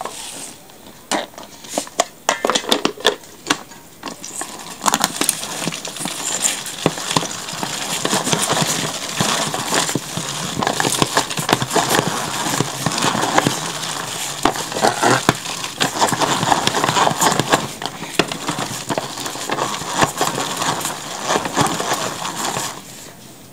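Hand-operated Master Slicer food chopper grinding raw cod fillets: a dense, continuous clatter of clicks and rattling as it is worked by hand, picking up about four seconds in and stopping just before the end.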